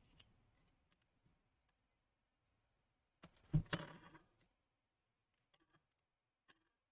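Mostly quiet handling of a laptop LCD panel while its adhesive tape strip is pulled. A short crackle and rustle comes about three and a half seconds in, and a few faint ticks follow.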